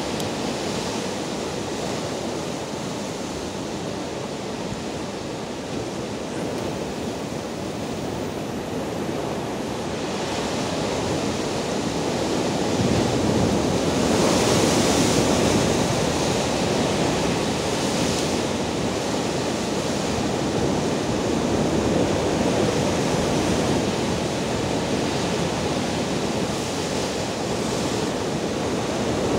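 Rough surf breaking and churning over shoreline rocks in a continuous rushing wash. About 14 seconds in, a big wave crashes against the rocks and throws spray, the loudest moment.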